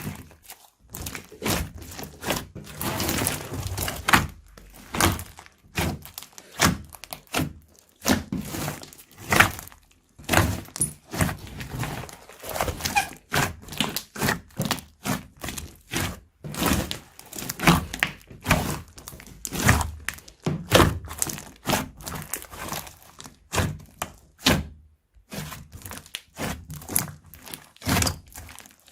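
Crunchy slime squeezed and pressed by hand, giving dense irregular crackling and crunching with soft thunks, in bursts with short pauses.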